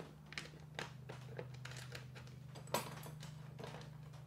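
Scattered light clicks and knocks of tools and parts being handled on a table saw, with one louder knock near the three-second mark, over a steady low hum.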